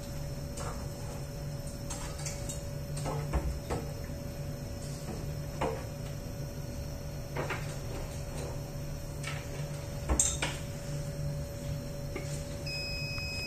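Sherwood 410 flame photometer running during calibration: a steady low hum with scattered light clicks and knocks. Shortly before the end a steady two-tone electronic beep starts, the signal that the 6 ppm calibration step is complete.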